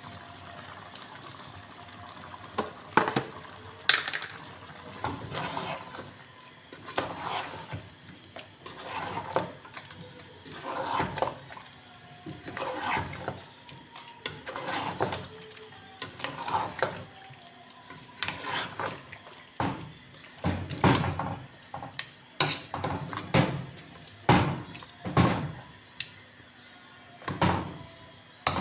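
Kitchen washing-up sounds: water splashing and dishes clattering, in short bursts about once a second after a few seconds of a faint steady hiss.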